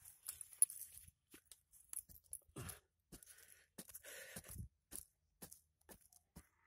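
A hand tool digging and scraping into soil around the roots of a serut tree being dug up, heard as an irregular run of short crunches and scrapes, with one longer scrape a little past the middle.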